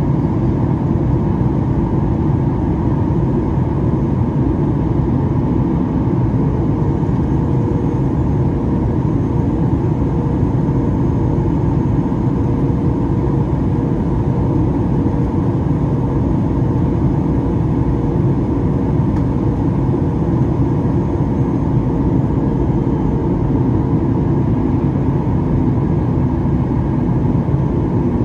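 Steady cabin drone of a Boeing 737-8 MAX during descent: the rumble of airflow and the hum of its CFM LEAP-1B engines heard inside the cabin, with a faint steady tone running through it.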